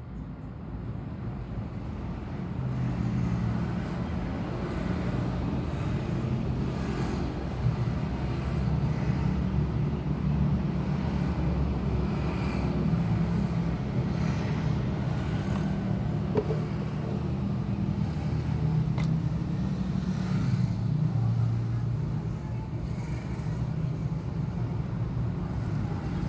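Honda Scoopy scooter's single-cylinder four-stroke engine running steadily, picking up about two seconds in.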